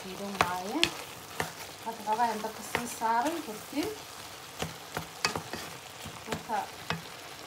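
Minced meat sizzling as it fries in a pan, stirred with a wooden spoon that knocks and scrapes against the pan with repeated sharp clicks.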